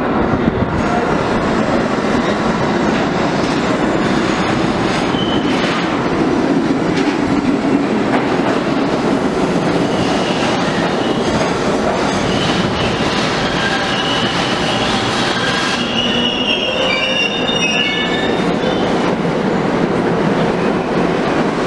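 R32 New York City subway train pulling into an underground station, its wheels rumbling steadily on the rails. High squealing comes in the second half as it slows to a stop.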